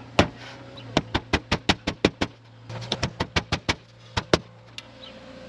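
Nail being hammered into metal roof flashing: quick, light strikes in two fast runs of about eight to ten blows each, then a few single blows.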